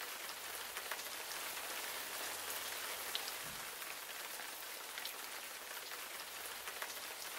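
Steady rain falling: an even hiss with single drops ticking here and there.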